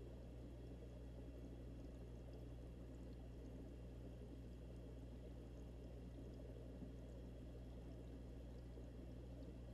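Faint, steady bubbling of two air-stone bubble streams in an aquarium, heard underwater and muffled through a waterproof camera housing, over a steady low hum.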